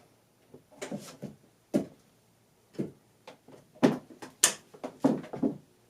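A series of about nine irregular clicks and knocks, as of things being handled and set down, with near silence between them.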